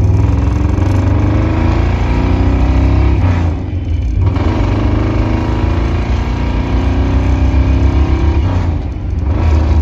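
1968 Camaro's carbureted engine with chambered exhaust, heard from inside the cabin, pulling the car up through the gears. The engine note climbs, drops briefly at an upshift about three and a half seconds in, climbs again, and drops at another shift near the end.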